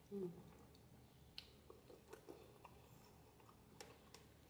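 Near silence with a few faint mouth clicks from chewing spaghetti, after a short hummed vocal sound right at the start.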